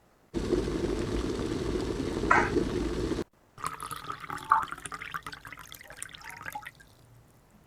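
Kitchen tap running hard into a sink for about three seconds, then shut off abruptly. Irregular splashing and clattering follow as things are rinsed and handled under the water, fading out near the end.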